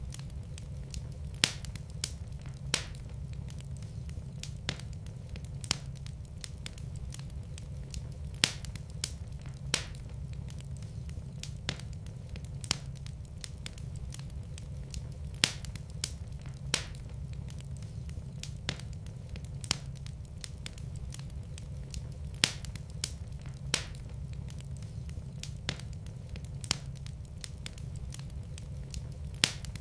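Wood fire in a fireplace crackling: irregular sharp pops and snaps, a dozen or so of them loud, over a steady low rumble.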